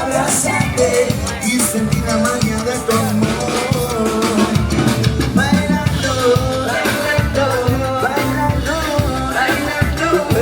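Upbeat background music with a steady drum beat and a singing voice.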